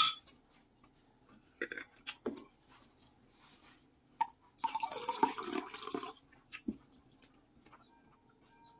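A person blowing and drawing air through pursed lips after spicy noodle soup, in a few short puffs and one longer breathy stretch about five seconds in: the mouth burning from the chilli heat.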